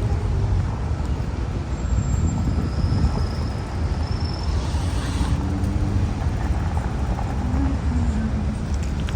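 Steady low rumble of a motor vehicle and road noise.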